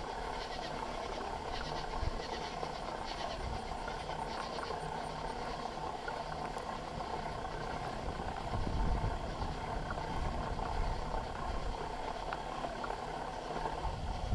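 Bicycle ride heard from a handlebar-mounted camera: steady tyre and drivetrain rumble with low knocks from bumps, louder for a moment about nine seconds in. Insects chirp faintly in pulses over the first few seconds.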